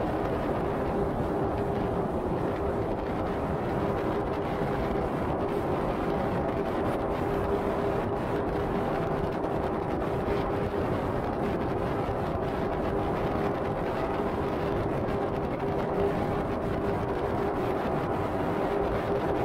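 Steady road and tyre noise of a car driving at highway speed, with a constant hum underneath.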